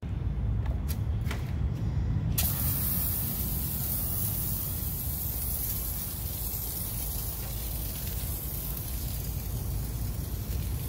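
Handheld IK Multi Pro 2 pump sprayer spraying car-shampoo foam onto a wheel: a steady hiss that starts suddenly about two seconds in, after a few short clicks, over a low steady rumble.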